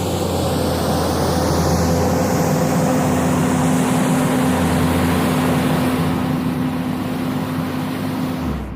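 JCB 426ZX wheel loader's diesel engine running steadily while working. A steady tone joins the engine about two seconds in and holds until shortly before the end.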